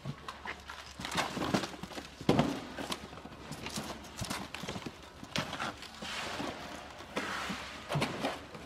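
Pineapples being handled and set down into cardboard boxes: irregular knocks and thuds of fruit on cardboard, about one or two a second, with some rustling of the boxes.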